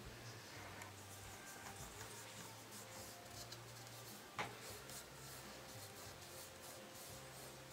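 Faint rubbing and scratching of fingers working over stitched veg-tanned leather watch straps, with one light click about four and a half seconds in, over a low steady hum.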